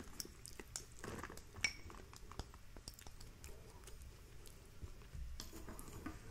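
Faint scattered clicks and soft scrapes of a utensil against a small glass bowl as sweet corn kernels are scraped out onto a plate.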